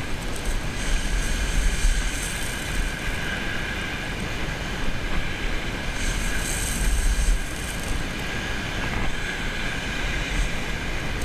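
Wind buffeting the microphone in gusts over the steady rush of waves on a shingle beach.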